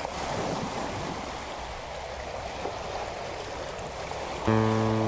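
Steady wash of sea waves on the shore. Acoustic guitar music comes in about four and a half seconds in.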